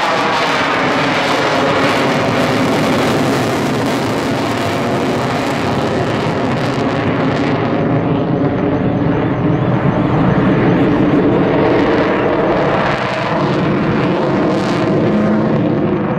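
Avro Vulcan XH558's four Rolls-Royce Bristol Olympus jet engines as the bomber flies past. The jet noise is loud and its pitch falls in the first few seconds; from about halfway the high end dulls while the low noise carries on.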